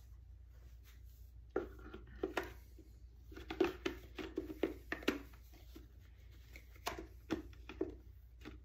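Short plastic clicks and knocks, a dozen or so scattered unevenly from about a second and a half in, as the clear dust bin and teal filter of a Bissell ReadyClean hand vac are handled and fitted back together onto the vac body.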